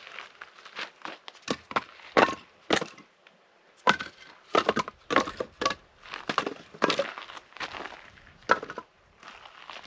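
Dry wood snapping and cracking in a rapid, irregular series of sharp breaks, like sticks and branches being broken up by hand.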